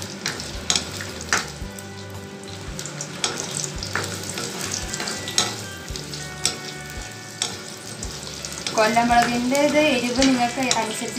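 Small onions and dried red chillies sizzling in hot oil in a nonstick wok, stirred with a silicone spatula that scrapes and taps the pan now and then. A voice sounds over the frying near the end.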